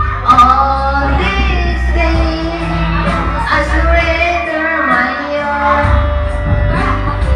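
Karaoke: a singer's voice through a handheld microphone over a music backing track with a steady bass.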